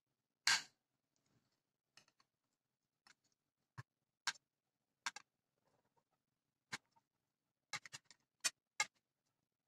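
Small kitchen knife clicking against a plate as it cuts boiled, peeled sweet potato into chunks: about a dozen short, sharp taps at irregular intervals, the loudest about half a second in and several close together near the end.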